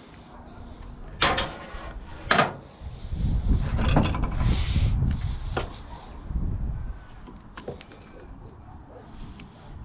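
Metal parts of a gas hot water unit being handled and pulled apart during scrapping: two sharp scraping clanks about one and two seconds in, then a few seconds of low rumbling and shifting, with a few light ticks near the end.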